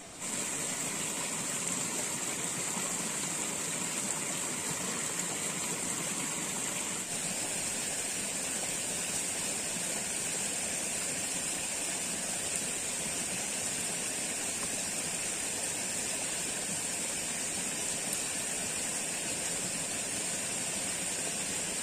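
Steady outdoor forest ambience: an even rushing noise with a continuous high-pitched hiss on top, holding the same level without breaks.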